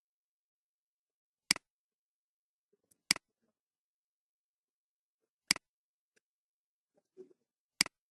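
Computer mouse clicking four times, single sharp clicks spaced one and a half to two and a half seconds apart.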